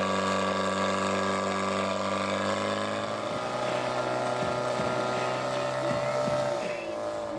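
Portable fire pump's engine running at high speed with a steady drone while it drives water to the hoses; its pitch dips slightly near the end.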